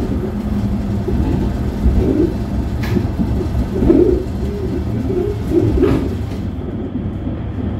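Interior running noise of a light-rail tram moving along a street track: a steady low rumble with a few short clicks and some low wavering sounds.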